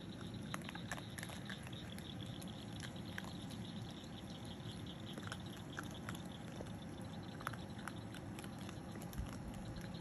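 Striped skunk and baby raccoon eating food off gravel ground: scattered small crunches and clicks over a steady faint background hiss.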